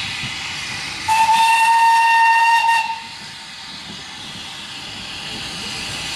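Industrial saddle-tank steam locomotive sounding its whistle once: a single steady, high note held for nearly two seconds, starting about a second in, over a steady hiss.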